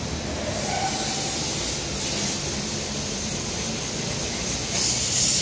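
Steady hissing workshop noise over a faint low hum, with a louder rush of hiss near the end.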